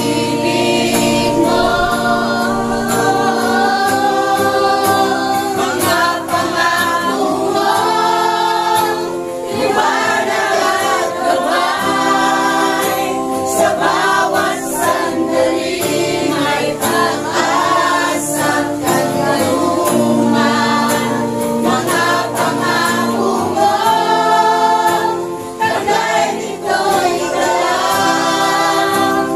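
A congregation singing a Tagalog Christian praise song with music, moving from a verse into the chorus.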